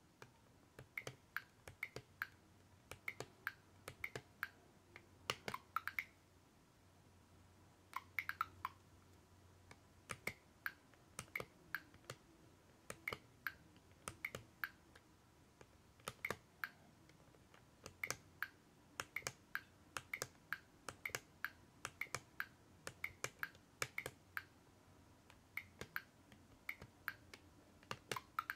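Plastic buttons of a LEGO Spike Prime hub clicked over and over with the tip of a marker pen, mostly in quick pairs, with a short pause about six seconds in.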